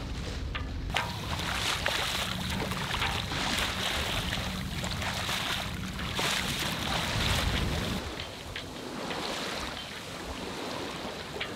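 Wind buffeting the microphone over water splashing and rushing along the hull of a sailboat under way under sail. The sound shifts abruptly about a second in and again near the end.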